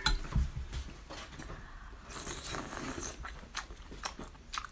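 Close-miked eating: a skewer of shrimp in spicy red sauce is bitten and slurped, with small crunches, wet sucking noises and a few clicks.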